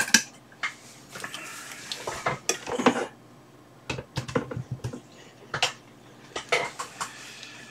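Irregular clicks, knocks and light clatter of hard objects being handled on a workbench.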